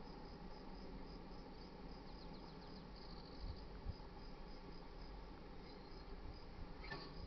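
Insects chirping steadily at a high pitch, cricket-like, over a low background rumble, with a short click a little before the end.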